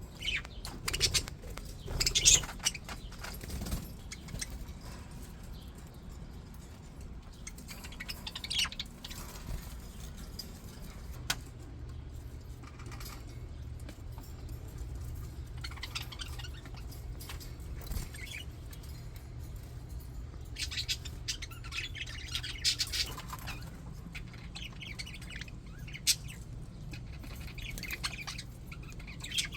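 English budgies (budgerigars) chirping and chattering in scattered short bursts, busiest about two seconds in and again past the two-thirds mark, over a steady low hum.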